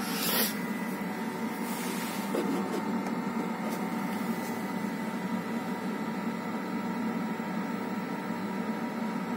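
KIPI pellet burner in its extinguishing phase: the combustion fan blows at about a third of its speed, and the internal auger and circulation pump run with it, making a steady machine hum with a faint whine. A brief hiss comes near the start.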